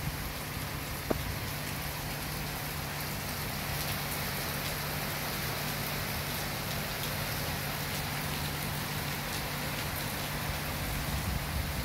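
Rain falling steadily, with a steady low hum underneath and a single click about a second in.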